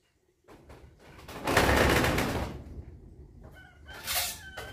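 A rooster crowing loudly for about a second, after a few light wooden knocks, followed near the end by short chicken calls.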